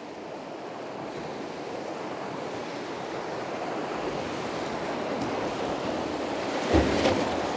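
Whitewater of a river rapid rushing around a drift boat, growing steadily louder as the boat runs into the waves. Near the end a wave hits the bow with a sudden heavy splash, throwing water into the boat.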